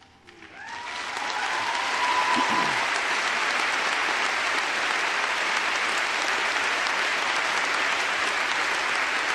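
Large audience applauding, swelling in over the first second and then holding steady.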